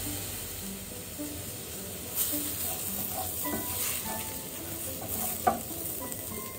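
Wooden spatula stirring and scraping a dry masala of fried grated coconut, spices, chopped onion and tomato around a nonstick pan, over a light sizzle of frying. A few sharper scrapes stand out about 2 s and 4 s in, and the loudest comes about 5.5 s in.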